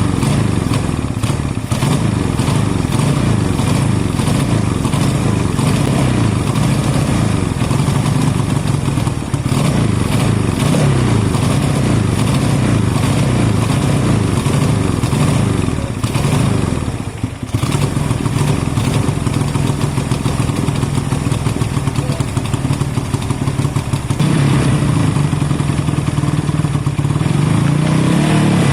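Kawasaki ER-6f's 649 cc parallel-twin engine running, its note wavering up and down, with a brief drop about two-thirds of the way through.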